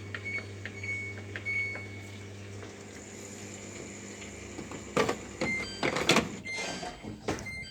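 Samsung washing machine's control panel beeping in short, high tones as its buttons are pressed, the machine still not switching off. A low hum drops out about three seconds in, followed by a few clicks and knocks.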